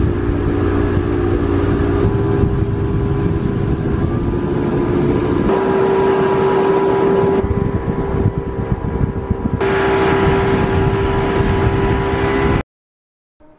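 Bass boat's outboard motor running at speed, with wind and rushing water; the steady engine tone shifts slightly at a few points and cuts off abruptly about a second before the end.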